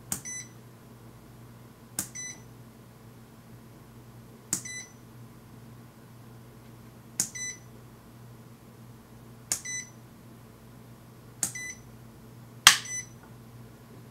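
Uni-T UT61E digital multimeter's rotary range selector clicked round one position at a time, about every two seconds, about seven steps in all, each click followed by the meter's short high beep. The leads stay on 115 V mains throughout, and the meter still beeps at each new range. The last click is the loudest.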